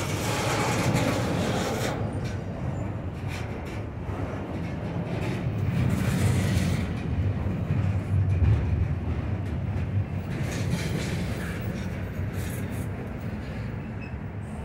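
Freight train cars rolling past: a steady low rumble with scattered clicks of wheels over the rails, swelling a little in the middle.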